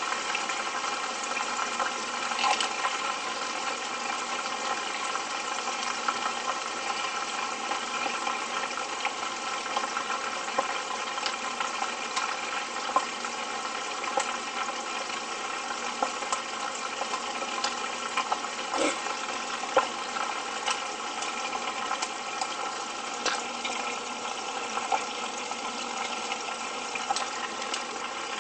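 Pieces of meat frying in shallow oil in a frying pan: a steady sizzle with frequent small pops and crackles.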